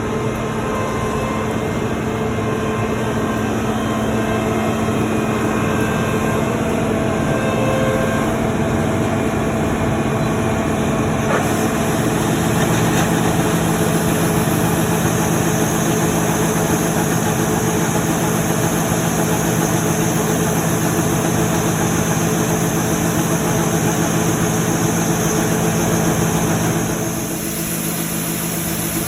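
Heavy farm machinery running steadily during soybean harvest, with a constant engine hum. Its note shifts about eleven seconds in, and the sound drops a little in level near the end.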